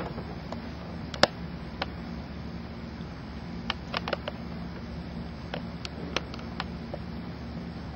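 Marker pen tapping and clicking on a whiteboard while a word is written: about a dozen short, sharp ticks at irregular intervals, the loudest about a second in, over a steady low hum.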